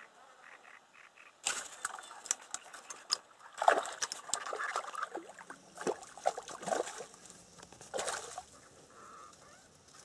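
Water splashing at the surface among reeds at the bank, in irregular bursts with sharp slaps from about a second and a half in until near the end.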